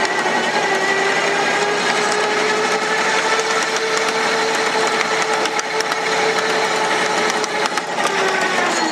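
The engine of a 7.5-inch-gauge ridable box cab locomotive running under way, a steady mechanical whine that drops in pitch near the end, with light clicks from the wheels on the track.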